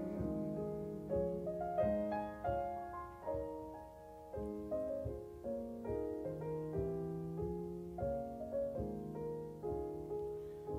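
Piano music: a slow instrumental passage of single notes and chords, each struck and left to fade.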